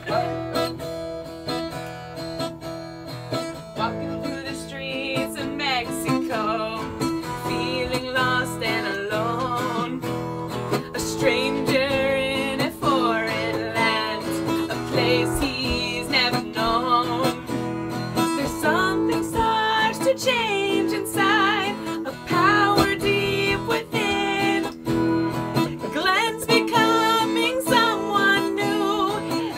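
Acoustic guitar strummed with singing over it: a song performed with guitar accompaniment.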